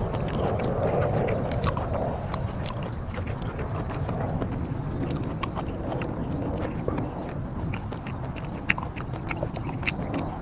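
Close-miked eating sounds: wet mouth clicks and smacks while chewing. Irregular sharp clicks run throughout over a steady low rumble.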